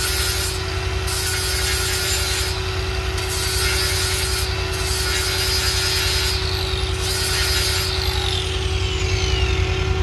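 Angle grinder run in short bursts, grinding metal at a forklift's cab door-handle mount after a nut has been welded in. Its high whine stops and starts, and twice near the end winds down with a falling pitch after the trigger is let go. A steady low hum runs underneath.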